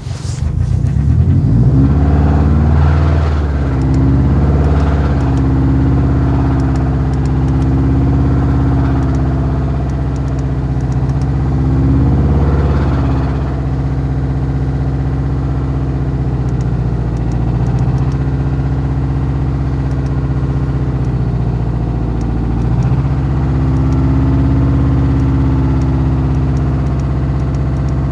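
Subaru EJ255 2.5-litre turbocharged flat-four engine running steadily, with a few brief throttle blips, once about a second in, again near the middle and once more towards the end. The owner takes the engine's noise for rod knock.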